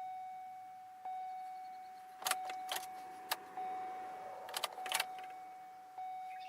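Car's warning chime dinging steadily about once a second, with keys jangling and clicking at the ignition in between.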